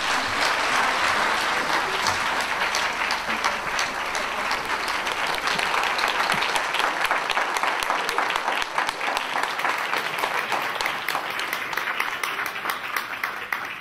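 Audience applauding: a dense wash of clapping that thins out into separate claps in the last few seconds.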